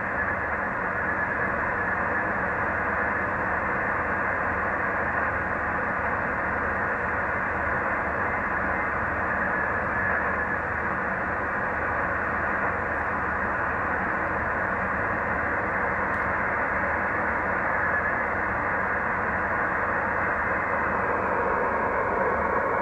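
ICOM IC-725 HF transceiver's loudspeaker giving a steady hiss of band noise with no station tuned in. This is the reference the receiver's S-meter is being set against.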